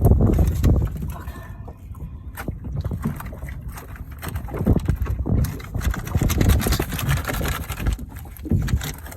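Wind buffeting the microphone on a small boat: a gusty low rumble that rises and falls, with a few light knocks.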